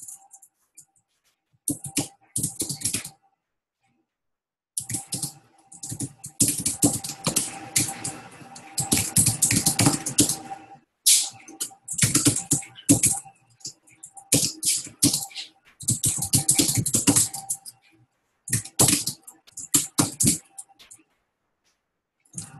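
Typing on a computer keyboard: quick runs of keystrokes with short pauses between them, the longest pause about three and a half seconds in.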